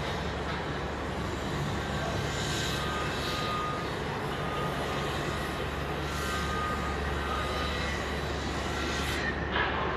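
Steady running-machinery noise: a low hum under an even hiss, with faint thin whistling tones through the middle.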